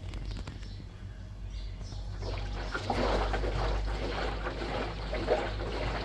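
Water rushing and splashing through a washing machine's dual-coil water inlet valve into the machine, starting about two seconds in, over a steady low hum.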